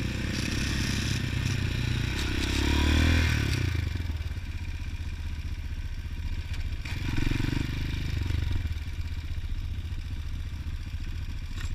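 Motorcycle engine running as the bike is ridden slowly, picking up revs twice: about three seconds in, the loudest point, and again around eight seconds in.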